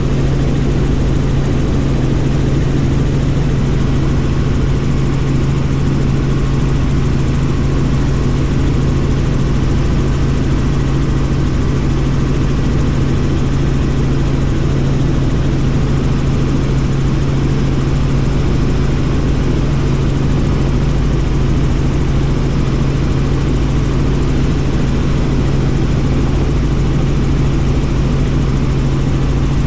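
Bell helicopter's engine and rotor heard from inside the cabin: a steady, loud drone with a strong low hum that holds unchanged.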